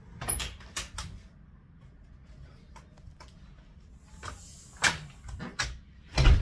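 A front door and its glass storm door being unlatched and opened, with handle and latch clicks and knocks, then the door swung shut with a heavy thump near the end.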